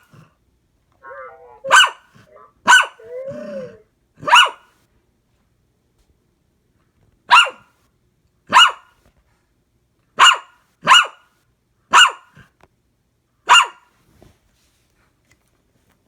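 A dog barking: about nine sharp single barks at uneven intervals. Two fainter warbling sounds come between the first few barks.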